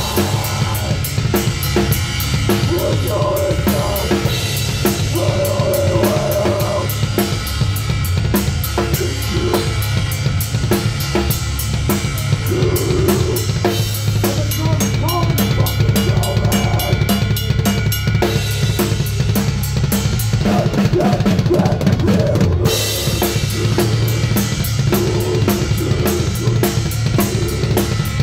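Mapex drum kit played loud and fast, close up: rapid bass-drum and snare strokes with cymbals, over the rest of the band playing live.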